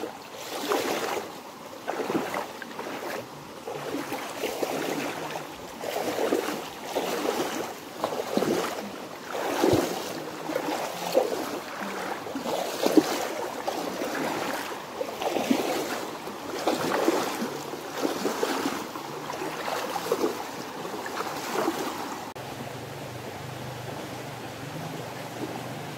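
Water sloshing and splashing around legs wading upstream through a shallow, fast river, in uneven surges about once a second. About four seconds before the end the sloshing stops, leaving the steady rush of the flowing stream.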